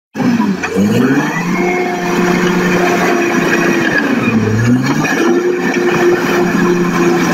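Caterpillar crawler bulldozer's diesel engine running at steady high revs. Its pitch dips sharply about half a second in and again about four and a half seconds in, each time climbing back up: the engine bogs down as the dozer takes load and then recovers. The sound cuts out completely for an instant at the very start.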